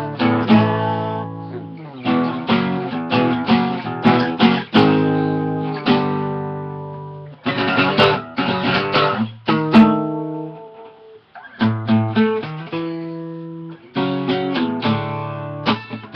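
Solo guitar strumming chords in an instrumental passage, in bursts of quick strokes with a few chords left ringing and dying away.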